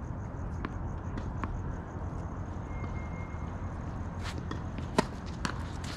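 A handful of sharp tennis ball impacts, spaced irregularly, the loudest about five seconds in, over a steady low rumble.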